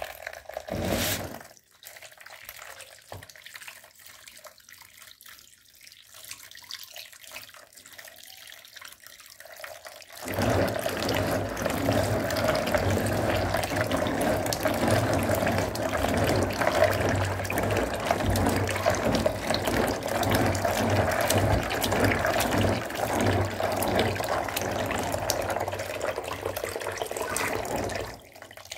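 Tap water running into a plastic basin of dry beans while a hand swishes and rubs them clean, a steady rushing splash. Before the tap comes on there are only faint scattered clicks.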